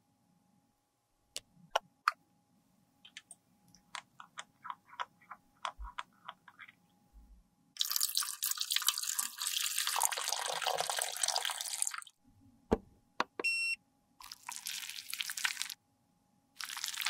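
Light clicks and taps of plastic makeup packaging, then 70% alcohol poured over empty plastic compact parts in a stainless steel tray: a loud splashing hiss lasting about four seconds. Two shorter bursts of similar hiss follow near the end.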